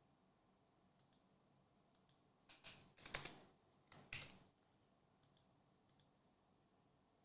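Near silence with a few faint clicks, broken by two brief rustling scrapes about two and a half and four seconds in, from trading cards and their plastic being handled on a table.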